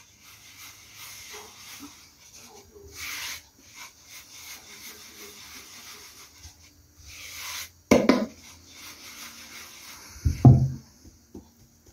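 A floured wooden bread board is swung and shaken back and forth on a cloth-covered table with a round of dough on it, giving soft scraping, rubbing and swishing as the board and dough slide. Two short voice sounds cut in, about eight seconds in and again about ten seconds in.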